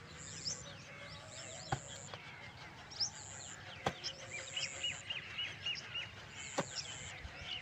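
A hoe chopping into wet earth: three sharp strikes a couple of seconds apart. Birds are chirping throughout, and a high buzz comes and goes.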